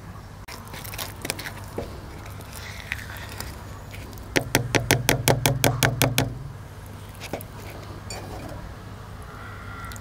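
Metal spoon stirring henna paste in a bowl, with scattered small clicks. About halfway through comes a quick run of about a dozen sharp clicks in under two seconds, the loudest sound here.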